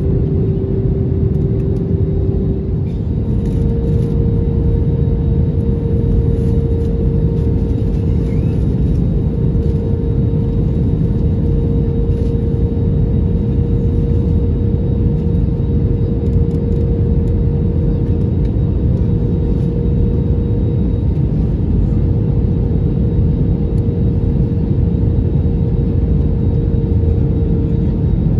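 Airbus A321neo cabin in flight: the steady rush and rumble of air and the Pratt & Whitney PW1133G geared turbofan engines, with a steady hum that steps up slightly in pitch about three seconds in.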